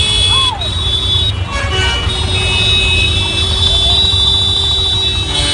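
Vehicle horns honking in heavy street traffic over the steady rumble of engines, with short honks at first and one long, held horn blast from about two seconds in.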